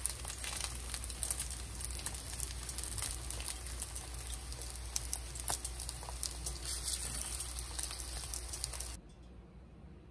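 Battered jeon (tofu, zucchini slices, meat patties and stuffed shiitake mushrooms) frying in oil in frying pans: steady sizzling thick with small crackles and pops. The sizzling cuts off suddenly about nine seconds in.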